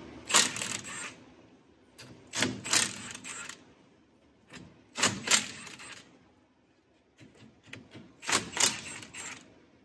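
Cordless impact wrench hammering on the bearing cap bolts of a Ford Super Duty rear differential, in four separate bursts of about a second each, one per bolt, as the carrier bearing caps are unbolted.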